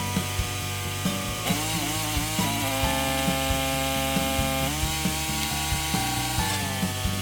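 Background music: sustained chords that change every second or two over a steady ticking beat, about two beats a second.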